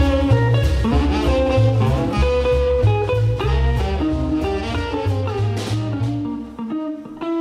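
Blues background music led by guitar, with a steady beat and low bass notes that drop out near the end.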